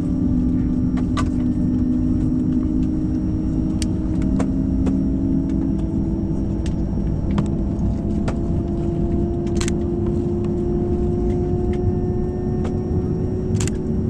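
Airbus A220-100's Pratt & Whitney PW1500G geared turbofans heard inside the cabin: a steady rumble with a whine that slowly rises in pitch, and a few sharp ticks scattered through it.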